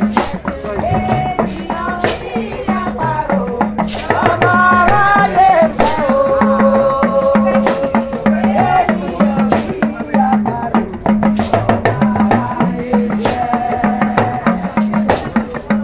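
A traditional cultural group's music: drums and percussion keep a steady beat, with singing over it.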